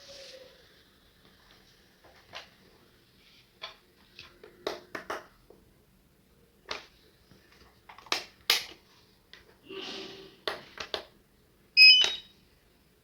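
Scattered clicks and knocks of small objects being handled, with a short rustle just before ten seconds in and a louder ringing clink near the end.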